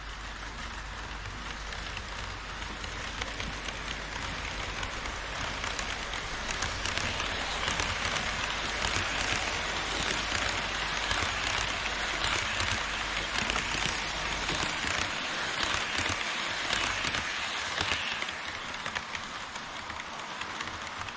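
Wheels of a passing HO scale freight train (container flat cars and tank cars) rolling over KATO Unitrack, a dense fast clicking and rattling. It grows louder, is loudest in the middle, and eases off a few seconds before the end.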